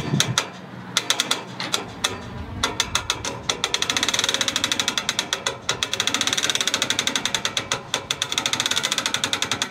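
Hand-cranked trailer bow winch ratcheting as it is wound: fast, even clicking of the pawl that runs in spurts, steady from about three seconds in. The winch line is taking up stretch and tension before the mast begins to lift.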